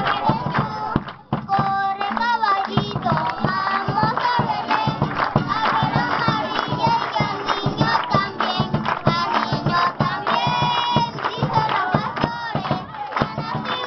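A group of children singing together into a microphone, clapping along in time.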